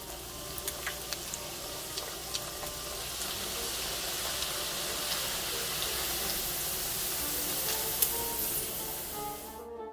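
Pork sizzling in hot oil: a steady hiss that slowly grows louder and cuts off just before the end, over faint background music.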